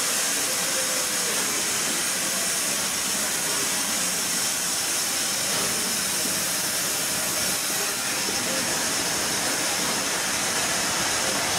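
S160 2-8-0 steam locomotive coasting slowly past, with a steady hiss of escaping steam.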